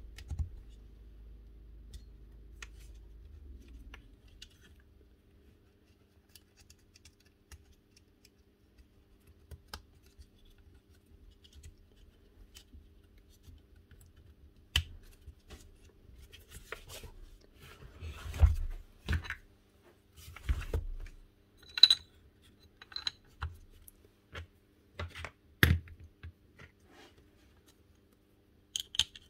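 Small clicks, taps and scrapes of tools and metal parts being handled while a rotary hammer is reassembled, with a few sharper knocks about 15, 18, 19, 22 and 26 seconds in.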